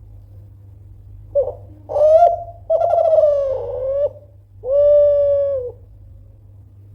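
Kelantan-strain spotted dove (derkuku) cooing: a loud phrase of about four notes starting about a second and a half in, the last a long steady coo.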